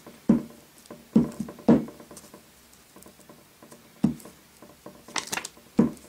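Pritt Stick glue stick being pressed and rubbed over the back of a paper sticker on a cutting mat: irregular knocks and scuffs, about seven, with a quick cluster near the end.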